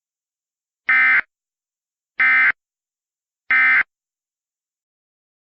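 Emergency Alert System SAME digital data, sent as three short, identical buzzy bursts about a third of a second each and just over a second apart. This is the end-of-message code that closes an EAS alert.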